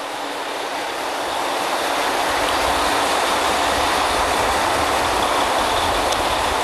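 Steady mechanical running noise from drilling-rig machinery, a dense hiss-like din with a low rumble under it. It swells over the first two seconds, then holds steady.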